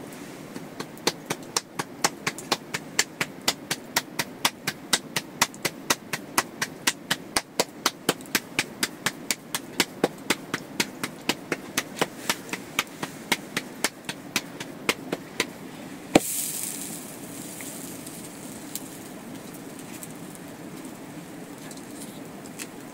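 Rapid, even knocking, about four sharp strikes a second, for some fifteen seconds; then one louder knock followed by a short hiss, over a steady background hiss.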